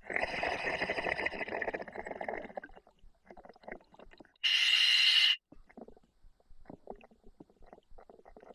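Diver breathing through a scuba regulator in an OTS Guardian full face mask: an exhale of bubbles that rumble and gurgle for about two and a half seconds, then a short, sharp hiss from the demand valve on the inhale about four and a half seconds in, with faint underwater crackling between.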